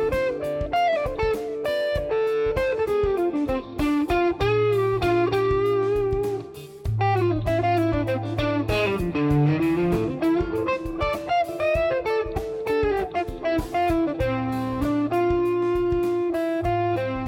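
Electric guitar playing a melodic lead line over a backing track with a bass line and drums.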